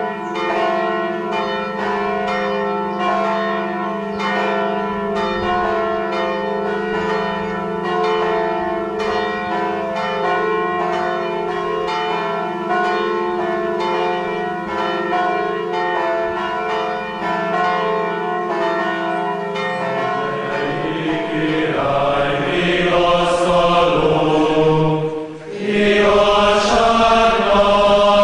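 Church bells pealing, several bells struck over and over with their tones ringing on. About two thirds of the way through, the bells give way to liturgical chant sung by a choir, broken briefly just before the chant comes in fully.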